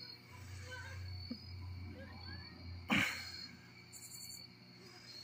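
A single sharp firework bang about three seconds in, followed by a brief high fizz, over crickets chirping steadily.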